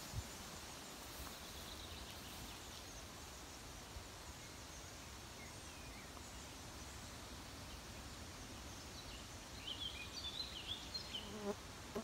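Summer forest ambience: a faint steady hiss with a light low rumble of air, insects buzzing, and small birds giving scattered high chirps, with a quick run of brighter chirps near the end.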